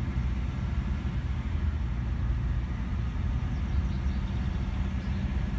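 Steady low rumble of the following car that the camera rides in: engine and road noise, with a steady engine hum coming up near the end.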